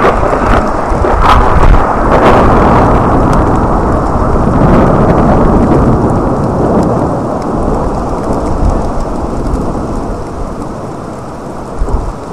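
Close thunder right after a lightning flash: a sudden crack, a few more sharp cracks in the first couple of seconds, then a long rolling rumble that slowly fades. Rain falls throughout.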